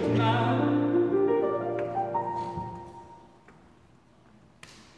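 Male singer's voice with piano accompaniment performing a show tune, the music dying away to near silence about three seconds in; a faint click near the end.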